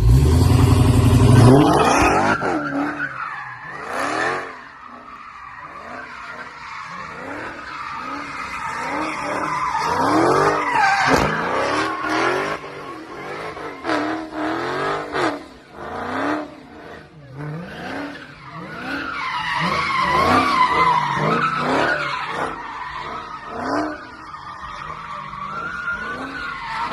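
Dodge Charger Hellcat's supercharged V8 running, loudest in the first two seconds, then revving up and down repeatedly with squealing, rising and falling tones.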